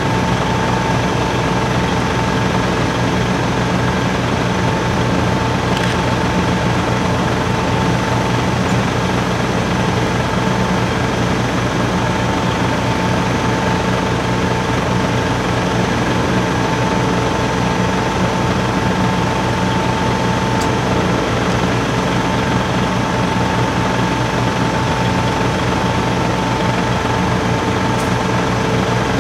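Heavy crane machinery running steadily: a constant low engine drone with a steady high whine over it, unchanging throughout.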